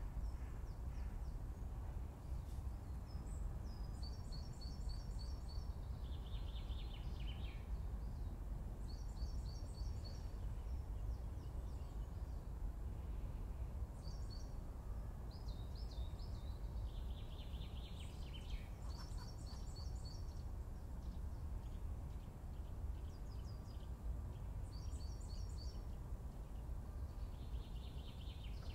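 Woodland songbirds singing: short phrases of quick high notes every few seconds, some running down into a lower falling trill, over a steady low rumble.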